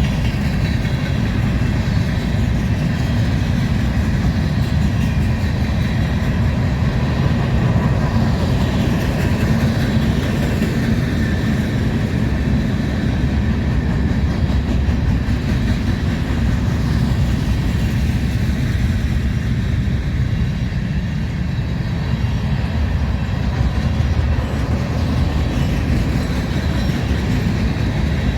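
A train's cars rolling past on the rails, a steady loud rumble of wheels on track.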